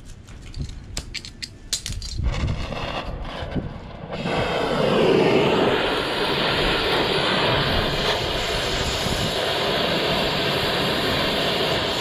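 A few clicks, then about four seconds in an oxy-fuel torch is lit and burns with a steady, loud rushing hiss. Its flame is played on a steel tyre-chain link to heat it red-hot for spreading.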